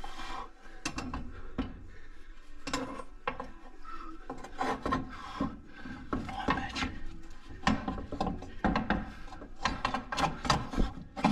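Metallic ratcheting clicks and clanks in irregular bursts as a compressed front coil spring and its compressor are worked into place on the lower control arm.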